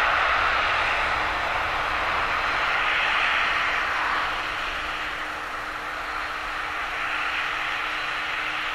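Boeing 777-300ER's twin GE90 turbofan engines running, heard from behind as the airliner moves away along the runway: a steady jet roar with a faint steady hum beneath, easing a little after about four seconds.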